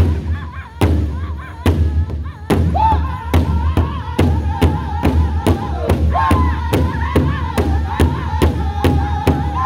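Powwow drum group: several men striking one large powwow drum in unison with drumsticks while singing in high, held voices. The beat is slow at first, a stroke a little under every second, then about two and a half seconds in it picks up to a steady faster beat of about two and a half strokes a second.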